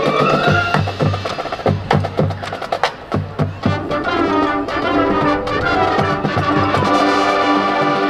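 High school marching band playing: a stretch of sharp drum and percussion strikes over the first few seconds, then the brass holding long sustained chords with percussion underneath.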